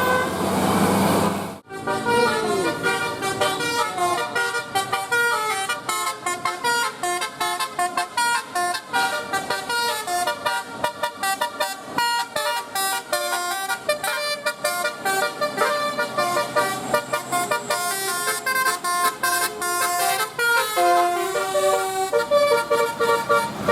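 Bus telolet horn, a multi-tone musical air horn, playing a fast melody of short stepped notes. The sound drops out sharply about a second and a half in, just before the melody starts.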